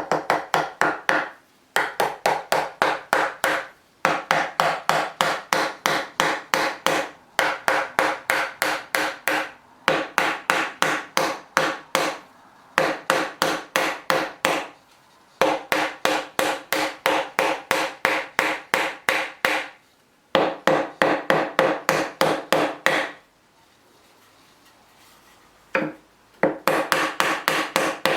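Fast, even strokes of a hand tool working wood, about six or seven a second, with a ringing note from the wood. They come in runs of two to four seconds broken by short pauses.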